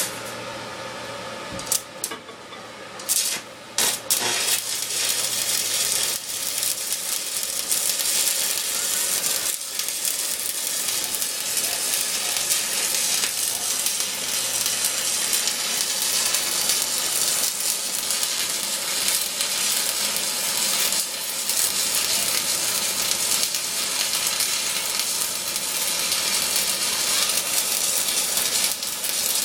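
Stick welding arc with a 7018 1/8-inch electrode on a T-joint: after a few short crackles as the arc is struck in the first four seconds, it settles into a steady frying crackle and hiss as the bead is laid.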